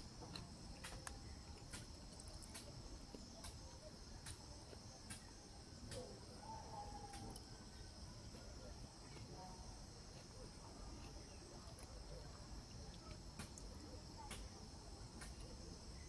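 Faint, steady high-pitched insect trilling throughout, with scattered faint clicks.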